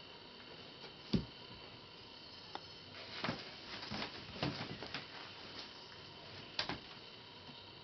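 A dog nosing and pawing at a blanket in a pet bed, heard as soft rustles and light taps over a quiet room. There is a sharp click about a second in, a run of taps in the middle, and another click near the end.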